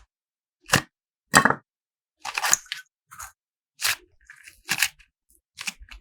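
Slime being worked by hand: about seven short crackling, crunchy squishes at irregular intervals.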